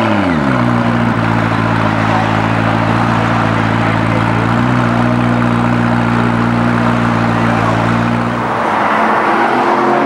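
McLaren P1's twin-turbo V8 engine settles from a rev flare into a steady idle, with its note falling sharply in the first half-second. Near the end the idle drops out and a different engine note rises and falls.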